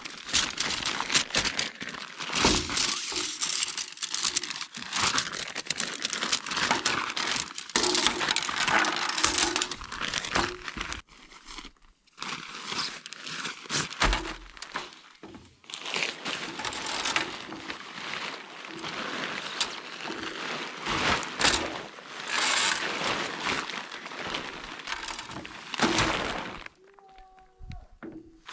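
Nylon tent fabric and stuff sacks rustling and crinkling in uneven bursts as they are handled and unpacked, with a couple of brief pauses.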